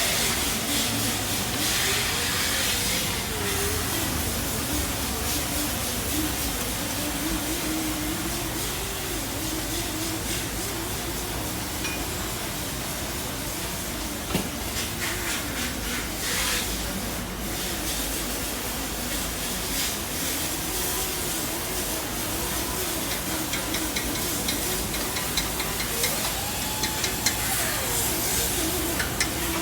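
Arc welding on a steel truck-bed frame: a steady hiss with a crackle that grows denser near the end, over a wavering hum.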